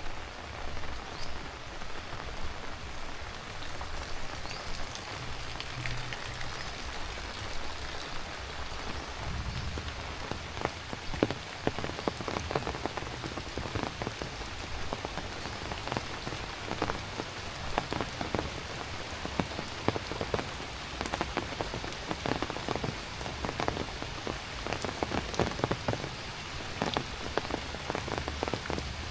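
Heavy rain falling steadily, with many sharp close drop impacts pattering over it. The close drops grow denser and louder after the first third.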